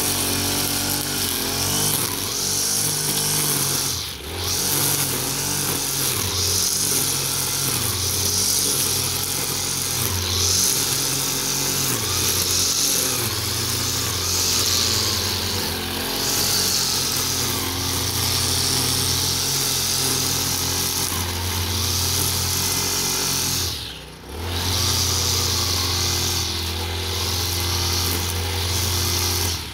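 Petrol brush cutter with a nylon line head running at cutting speed as the line cuts grass, its engine note rising and falling with the throttle. The sound dips briefly twice.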